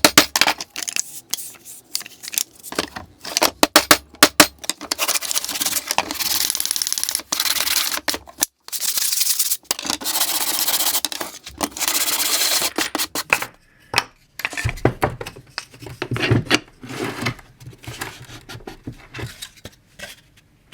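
Hand sanding of a birch-ply cam clamp: long, even scratchy strokes of sandpaper on wood, preceded by quick clicks and taps. Lower wooden knocks and clatter near the end as the clamp is handled.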